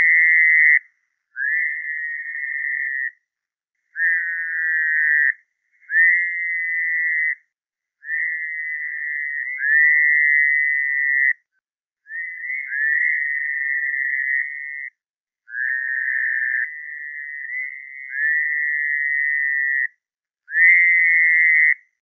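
Fowler's toads calling: a run of sheep-like buzzing calls, each one to three seconds long with short gaps between, two or more callers overlapping through the middle.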